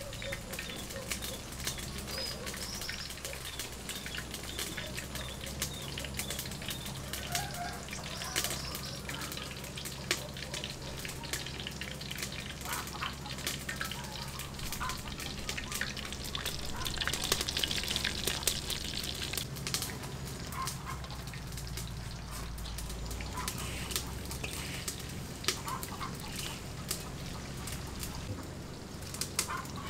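Dry breadcrumbs crunching and rustling as chicken breast pieces are pressed and turned in them by hand, with a steady run of small crackles, a low hum, and a few faint bird chirps.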